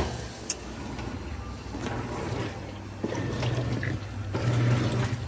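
Water pouring into a Maytag top-load washer's tub as it fills for a wash cycle, with a steady low hum from the machine and a sharp click right at the start.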